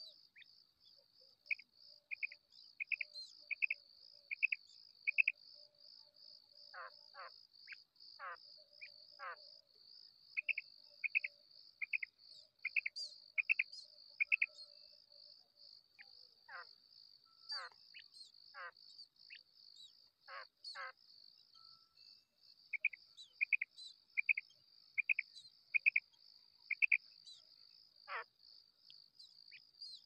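Female common quail calls: three series of about six short, evenly spaced high notes, with scattered downward-sliding calls between them. A steady, pulsing high insect trill runs underneath.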